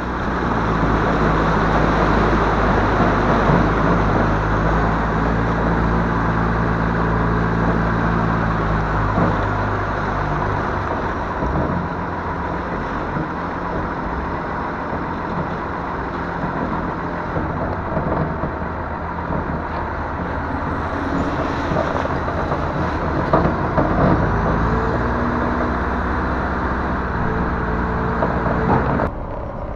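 The diesel engine of a BMY M925A2 6x6 military truck running as the truck drives, with a steady rushing of wind over the microphone on the hood.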